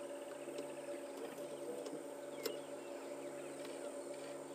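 Low, steady hum of a safari game-drive vehicle's engine idling, with faint bird or insect chirps over it and a single faint click about halfway through.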